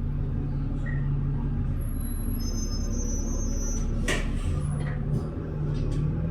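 Interior of a moving bus: its engine running steadily with road noise, and one sharp knock about four seconds in.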